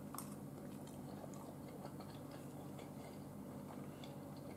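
Faint chewing of a forkful of soft zucchini and yellow squash spirals with spinach and melted cheese: scattered small wet clicks over a steady low room hum.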